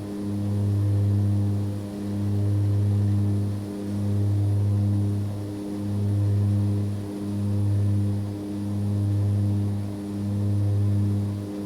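Aircraft in steady flight: a low, even engine drone with a constant pitch that swells and dips in loudness a little under every two seconds.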